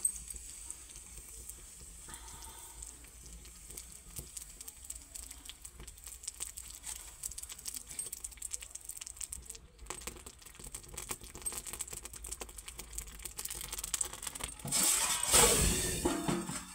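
Tadka ladle sizzling over an open fire, with steady light crackling. Near the end comes a much louder burst of sizzling and rushing as flames flare up out of the stove.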